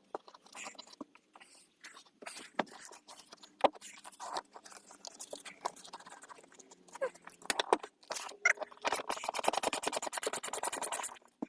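Wrench and bolt clicking, knocking and scraping as a seat belt anchor bolt is worked loose, then a run of fast, even ratchet clicks lasting about two seconds near the end.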